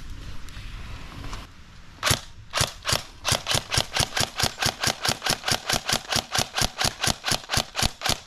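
Airsoft M4-style rifle firing: a few separate shots about two seconds in, then a steady string of sharp cracks at about five to six a second.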